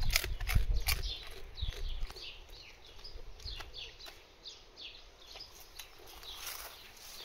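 Bull terrier crunching a rabbit ear treat, loud crunches in the first second or so, followed by a run of short, high, falling chirps.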